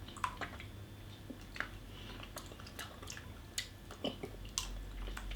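Mouth sounds of a person tasting a large hard-boiled candy: scattered small clicks and smacks at irregular intervals.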